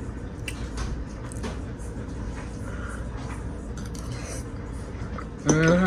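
Faint clicks and scrapes of a fork or spoon on a dish while eating, over a steady low room hum.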